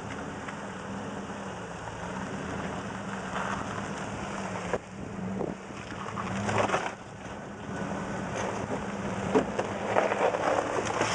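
Jeep Cherokee XJ engine running steadily at low revs as the Jeep crawls over a rock ledge, under a rough rushing noise that swells about six seconds in and again near the end.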